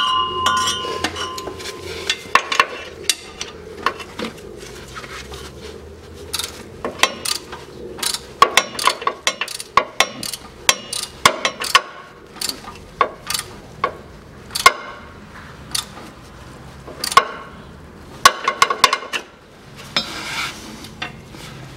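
Irregular sharp metallic clicks and clinks of a hand tool working the transfer case plug as it is screwed back in, starting with a brief ringing clink.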